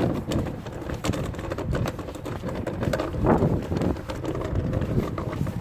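Kick scooter rattling and clattering as it rolls over bumpy ground, a run of irregular knocks over a low rumble.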